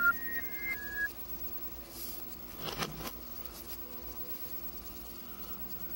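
Music from a CRT TV's speaker, played backwards, its last held notes cutting off sharply within the first second. Then low room tone with a faint steady hum, and a short burst of noise about three seconds in.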